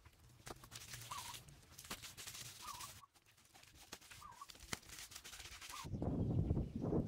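A bird repeating a short wavering chirp about every one and a half seconds, over a background hiss with scattered sharp clicks. A louder low rumble takes over about six seconds in and stops abruptly.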